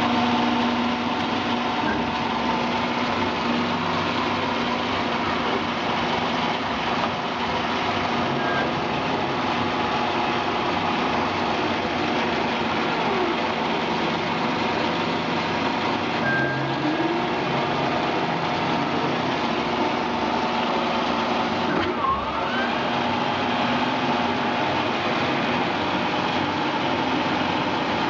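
Warner & Swasey No. 3 turret lathe running: a steady mechanical whirr from its motor and geared headstock, even in level throughout.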